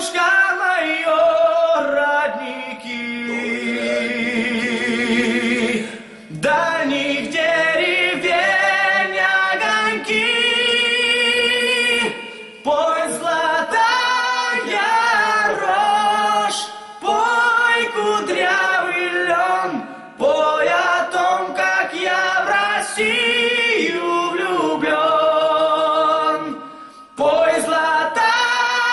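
Two young male voices singing a cappella in harmony, in sung phrases with short breaths between them and long held notes with vibrato. One voice begins alone and the second joins in.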